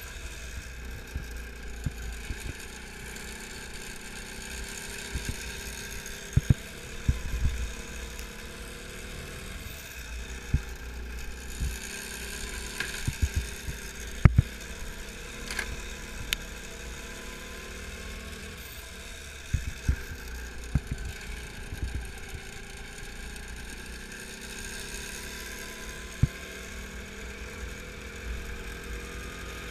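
Go-kart engine running as heard from on board, its pitch drifting up and down through the laps, over a low chassis rumble. Irregular low thumps and several sharp knocks from the kart, the loudest about halfway through.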